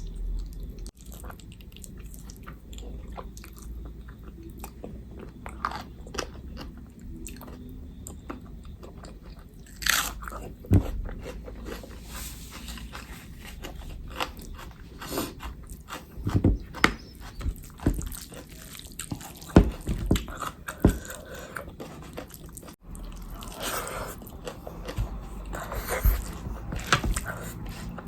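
Close-miked eating: chewing and biting into food, with irregular sharp crunches throughout.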